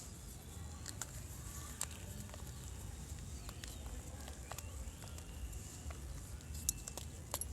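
Fresh gym chalk being crunched: sparse, irregular sharp crackles over a steady low hum, with a louder crack near the end.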